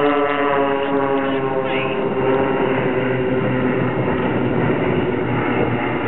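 Propeller engines of four Extra 300 aerobatic aircraft flying in formation overhead. Their drone slowly drops in pitch over the first couple of seconds as they pass, then carries on as a steady, rougher drone.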